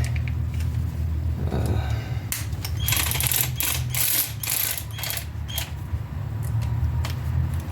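Metal clicking and rattling of hand tools and hardware as a hub bolt is worked into place, densest from about two to five seconds in, over a steady low hum.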